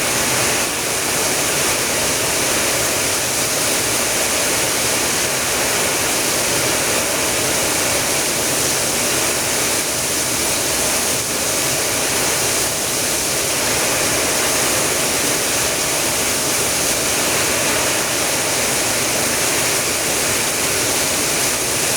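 Heavy rain pouring steadily in a rainstorm, a dense even hiss with no letup.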